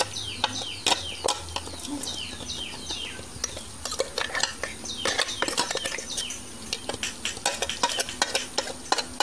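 A spoon clinking and scraping against a steel mixer-grinder jar and a metal kadai as ground rasam powder is emptied out, in many sharp clicks, with many short, high, falling chirps through the first half.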